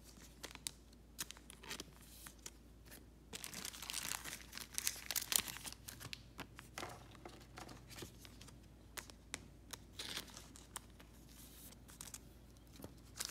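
Soft, intermittent crinkling and rustling of thin plastic card sleeves as Pokémon trading cards are slid into them, with small clicks of cards being handled. The rustling is busiest about four to five seconds in.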